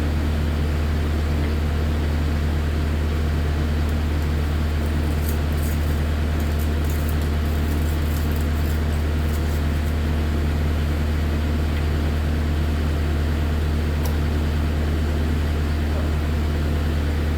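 Kubota SVL90 compact track loader's diesel engine idling steadily, with a few faint light clicks partway through.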